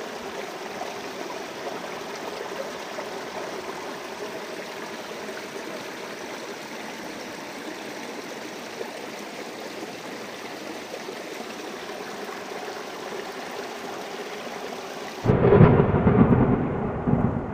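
Steady rain hiss, then a sudden loud thunderclap about fifteen seconds in that rumbles on and fades.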